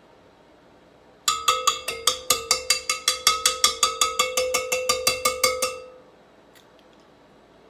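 A wire whisk knocking rapidly and evenly against a mixing bowl, about six strikes a second for some four seconds, the bowl ringing with a steady tone under the clicks.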